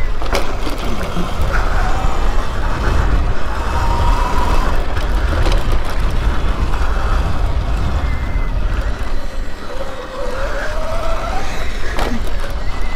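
Electric dirt bike ridden on a rough dirt trail: the motor's whine rises and falls with the throttle, with a longer rising whine about two-thirds of the way in. Heavy wind buffeting on the microphone and a few sharp rattles and knocks from the bumps.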